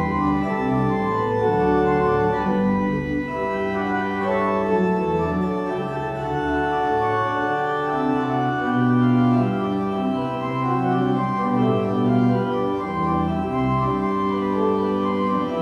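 Church organ playing the postlude, slow sustained chords that shift every second or two.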